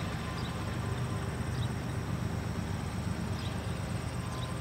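Freight train's lead diesel locomotive running with a steady low rumble as it approaches slowly. A few faint high chirps sound over it.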